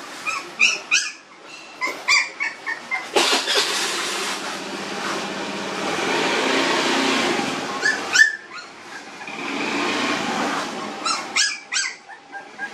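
Young puppies, about 25 days old, giving short high-pitched squeals in clusters: near the start, about eight seconds in and again near the end. A steady rushing noise fills the stretches between.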